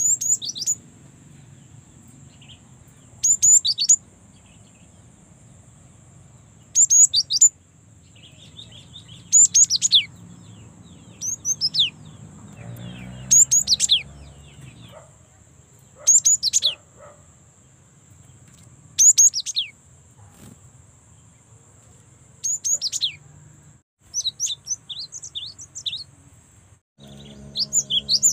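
Young cinereous tit (gelatik batu) singing: short clusters of two or three high, sharply falling notes, repeated about every three seconds. Near the end it breaks into a quicker run of short notes.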